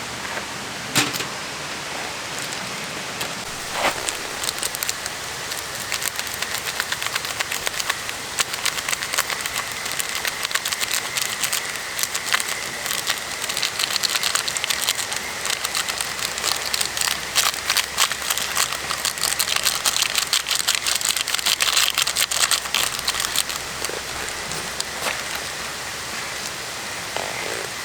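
Food sizzling and crackling in a hot pan, the spitting growing denser in the middle and easing off near the end.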